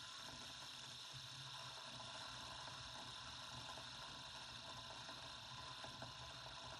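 Faint, steady whir of a spinning fidget spinner's bearing, with a low hum and hiss.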